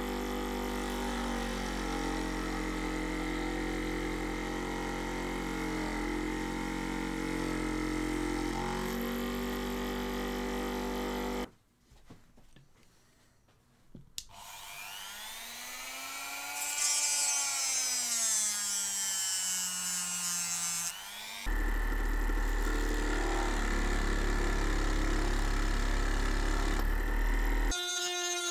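A small benchtop scroll saw runs steadily while cutting a thin piece of wood, stopping about eleven seconds in. After a short lull, a handheld Einhell rotary tool whines with its pitch sweeping up and down, then runs steadily as it sands the end of a wooden part.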